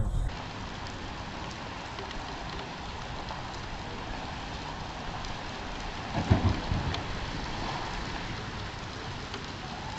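A steady, even hiss of noise with one brief, loud low thump about six seconds in.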